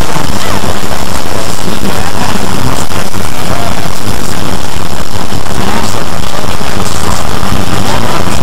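A dense, constant wall of distorted noise from many soundtracks layered on top of each other, so loud it is clipped, with no single voice or tune standing out.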